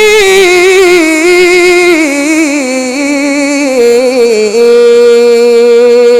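A qari's solo voice in melodic Quran recitation, drawing out a long wordless melisma: the line steps down with wavering ornaments, breaks off briefly about four and a half seconds in, then holds a high note.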